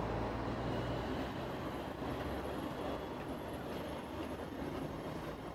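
Steady street and tram noise: a low hum for the first second and a half, then an even rumble from Hong Kong double-decker trams standing and creeping on the track, with road traffic.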